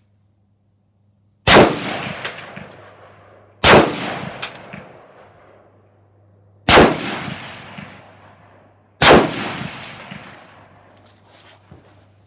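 Four rifle shots, spaced about two to three seconds apart, each trailing off in a long echo. A few faint clicks follow the last shot.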